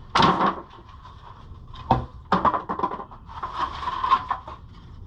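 Crunching and knocking of wood, with a sharp knock about two seconds in and rough crunching after it.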